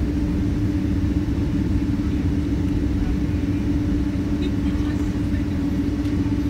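Inside the cabin of a Boeing 767-300ER while it taxis: a steady low rumble of the engines at idle and the rolling aircraft, with one constant droning tone over it.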